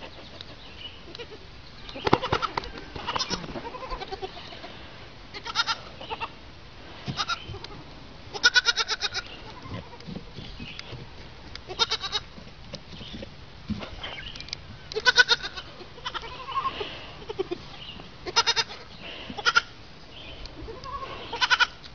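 Young goats bleating, about ten separate short calls scattered across the stretch, each with a quick quavering pulse.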